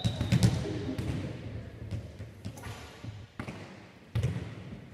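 A volleyball being struck during play in a gymnasium: a few sharp slaps and thuds that echo in the hall, one at the start, then two more about three and a half and four seconds in.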